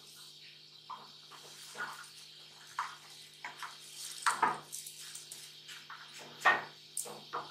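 Wooden spoon scraping and knocking against a steel bowl as raw rice is pushed off it into a pot of boiling water, with the rice pattering and splashing in. Irregular clatters, the loudest about halfway through and again near the end.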